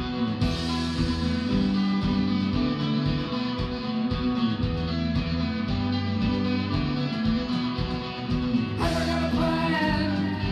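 A rock band playing live: electric guitars, bass guitar and drum kit. A voice comes in singing near the end.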